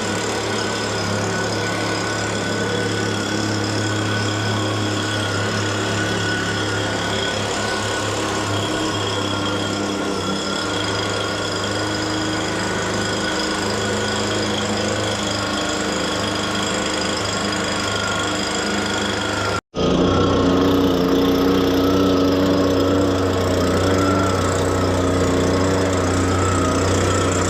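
Gasoline leaf blower's small engine running steadily, blowing air. It cuts out briefly about twenty seconds in and comes back louder at a different pitch. The owner thinks its carburetor settings need changing.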